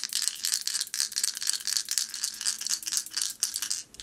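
A set of three astrology dice rattling together as they are shaken, a fast, dense run of clicks that stops near the end.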